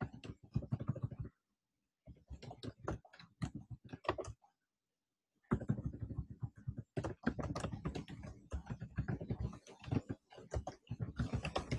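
Typing on a computer keyboard: quick runs of keystrokes with two short pauses, about a second and a half in and again about four seconds in.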